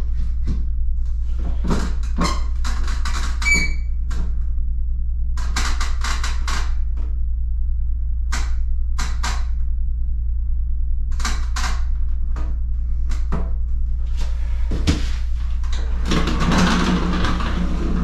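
Scattered light knocks, taps and rustles of hand tools being handled against a wall while marking plumb lines, with a brief ringing metallic clink a few seconds in and a denser scraping stretch near the end, over a steady low hum.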